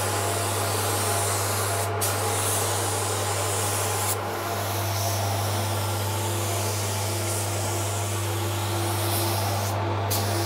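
Air-fed gravity-cup spray gun spraying paint onto a lawnmower deck, a steady hiss that dips briefly three times as the spray pauses. A steady low hum runs underneath.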